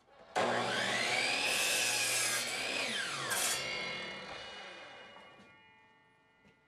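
A DeWalt compound miter saw starts up and its blade cuts through a maple block. After about three seconds the motor is released and winds down, its whine fading out over the next few seconds.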